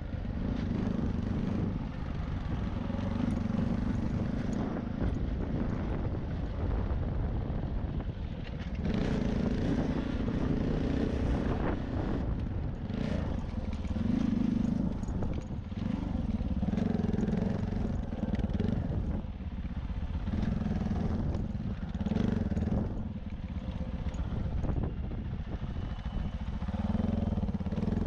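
CSC RX4 motorcycle engine running under changing throttle while riding, swelling and easing every second or two, with wind noise and scattered clatter from the tyres on loose cinders.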